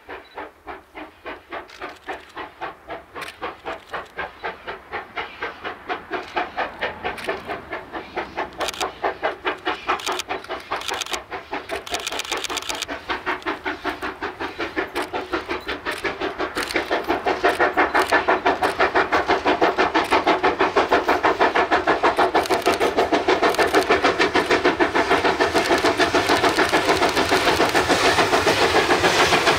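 South African Railways steam locomotive working hard, its exhaust chuffing in a steady rhythm of beats that grow louder as it approaches and are loudest near the end.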